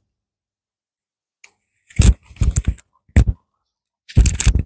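Handling noise on a wireless clip-on lavalier microphone: close rubs and knocks as the mic and its clip are adjusted on a shirt. Total silence for about the first two seconds, then a few clusters of bumps.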